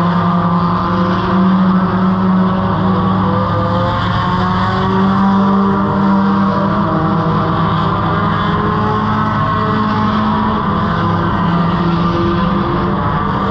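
Race car engine idling steadily while the car stands still, its pitch wavering slightly.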